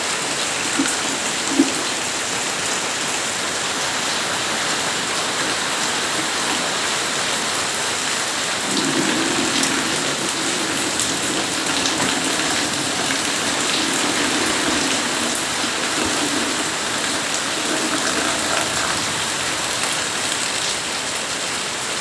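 Steady rain falling, an even hiss of drops throughout, with two small knocks near the start and a low sound that comes in about nine seconds in and fades out near the end.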